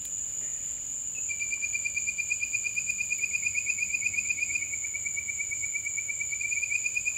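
Insects calling: a steady high-pitched buzz throughout, joined about a second in by a lower, evenly pulsing trill that carries on to the end.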